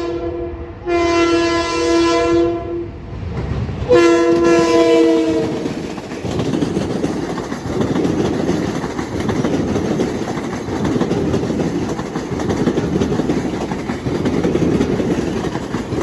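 Long Island Rail Road train's horn: the tail of one blast, then two long blasts, the second the loudest. Then the train runs past with a steady rumble and the clickety-clack of its wheels over the rail joints.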